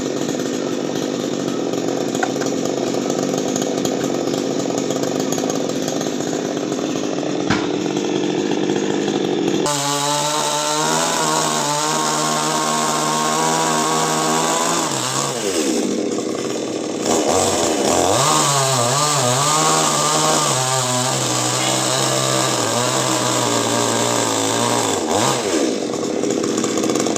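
Chainsaw running while cutting a coconut tree. About ten seconds in its engine note stands out clearly, drops off briefly in the middle, revs back up unevenly, then holds steady before dropping again near the end.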